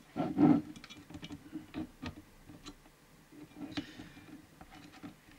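Meter test probes and their leads being set down on a CB radio's metal chassis and circuit board: light, irregular clicks and taps, after a brief louder handling noise right at the start.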